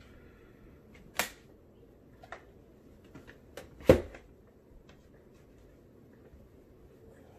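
Handling of a Mobile Pixels Duex Pro portable monitor against a laptop: a few light plastic clicks and knocks as it is lifted and lined up on the lid, with the loudest knock about four seconds in.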